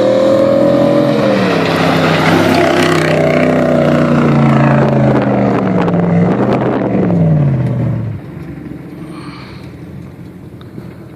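Off-road 4x4 engine running hard, its pitch rising and falling with the throttle. The revs fall and the sound drops away sharply about eight seconds in, leaving a quieter engine note.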